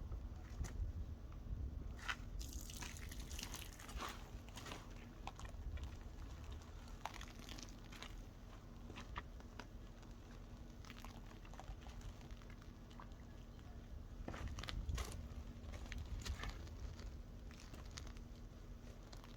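Faint crinkling and rustling with scattered small clicks from hand car-detailing work, over a low rumble.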